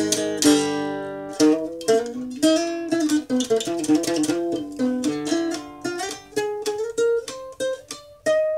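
Three-string guitar played solo: a picked single-note melody line, several plucked notes a second, each struck sharply and quickly fading.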